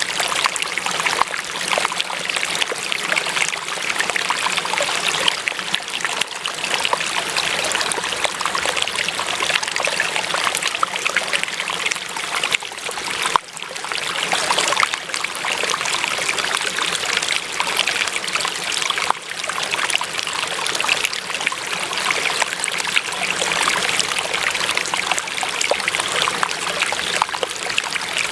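Running water trickling and splashing steadily, like a small stream, with a brief dip in level about halfway through.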